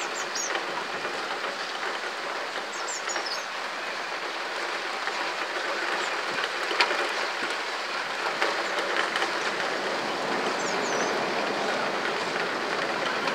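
Heavy storm rain pouring down, a steady dense hiss.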